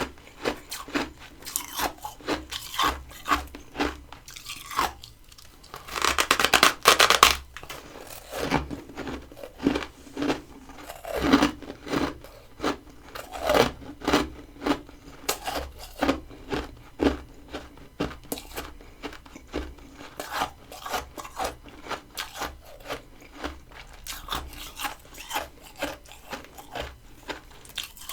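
Crunchy freezer frost bitten and chewed close to the microphone: a steady run of sharp crunches, with a longer, louder burst of crunching about six seconds in.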